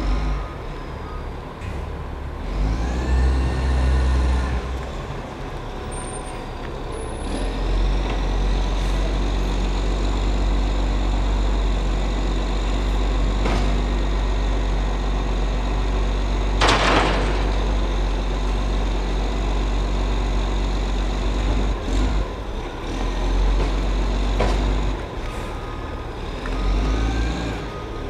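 Recycling truck's diesel engine rumbling, revving up and holding high revs several times as it works the kerbside pickup, with a whine that rises and falls with the revs. A brief sharp hiss about two-thirds of the way through.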